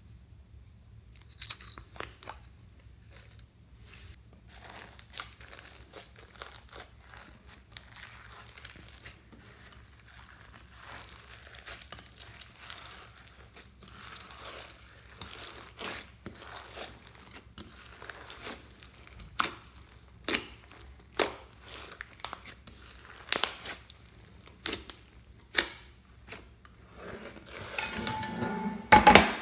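Slime mixed with sequins, glitter and foam beads being squeezed and kneaded by hand in a glass dish: sticky crackles, pops and clicks at an uneven pace. Near the end a louder, denser stretch as the slime is turned out of the glass dish.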